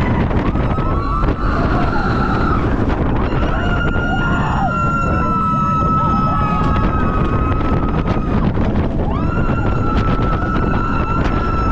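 Wind rushing over the microphone and the rumble of the Blue Fire coaster train running through its inversions. Riders scream over it in two long held screams, one from about three seconds in and another near the end.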